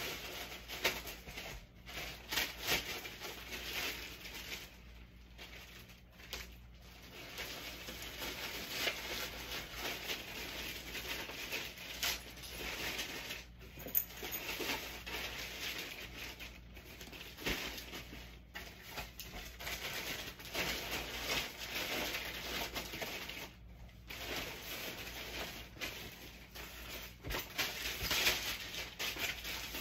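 Clothes and other items being handled and stuffed into a Supreme North Face duffel bag: irregular rustling and crinkling with soft knocks, pausing briefly now and then.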